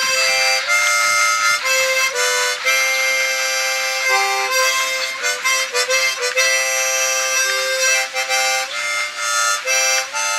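Background music: a melody of held notes, changing every half second to a second.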